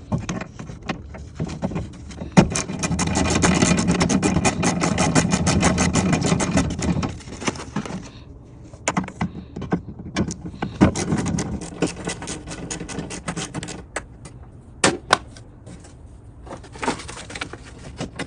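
A tool undoing the bolts that hold the rear door glass to its window regulator: a rapid, even clicking that runs for about five seconds, then shorter bursts of clicking and a few sharp knocks of metal on metal.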